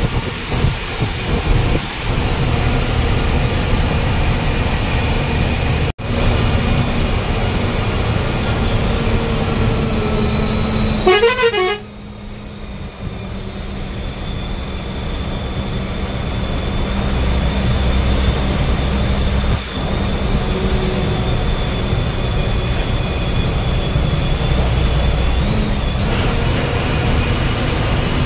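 Bus running on the road, with a continuous engine and road rumble and a faint steady whine. A vehicle horn sounds for about a second near the middle.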